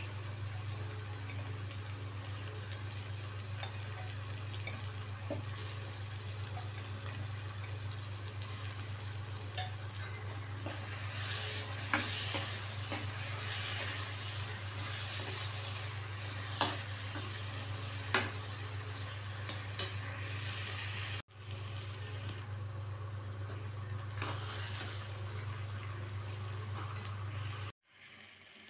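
Masala frying in an aluminium kadai, sizzling, while a metal spoon stirs and scrapes through it. The spoon clicks sharply against the pan a handful of times. A steady low hum runs underneath.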